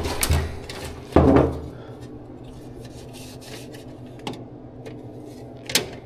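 Handling noise in a workshop: two sharp knocks with a dull thump early on and about a second in, then a few light clicks and rubbing as parts and tools are moved.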